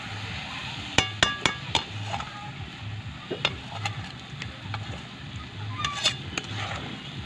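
Metal spatula stirring and scraping a sticky grated-coconut and sugar mixture in an iron kadhai, with the syrup sizzling as it cooks down. The spatula clinks sharply against the pan several times in quick succession about a second in, and again a few times later.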